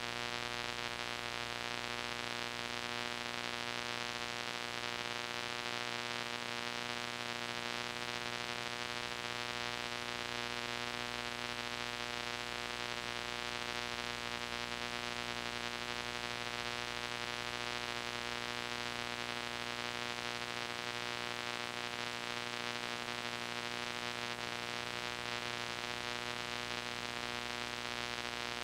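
Steady hiss with a constant electrical hum underneath and no other sound: the playback noise of an old VHS tape.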